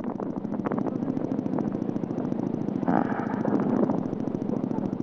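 Yamaha NMAX scooter's single-cylinder engine running through a leaky exhaust: a fast, even pulsing that swells briefly about three seconds in.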